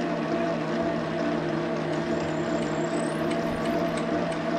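Metal lathe running with a steady hum while a drill is fed into the spinning workpiece. A faint high whine rises briefly a little after two seconds in.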